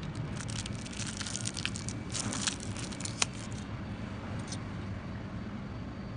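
Thin plastic packaging crinkling and tearing open: a dense run of crackles for about three and a half seconds, with one sharper snap a little after three seconds, then a few faint crackles.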